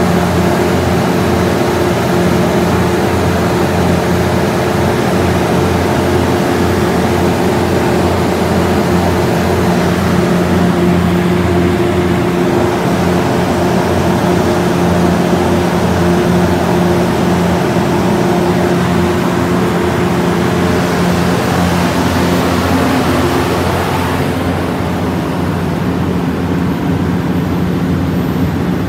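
Multiquip DCA150 portable diesel generator running steadily under load at about 1800 rpm, a loud, even engine drone with a steady hum. A little past two-thirds of the way in the sound shifts slightly and the hiss above the drone fades.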